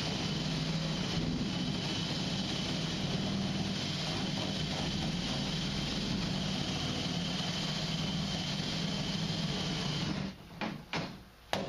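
A steady machine running with a constant drone, which cuts off about ten seconds in, followed by a few short knocks.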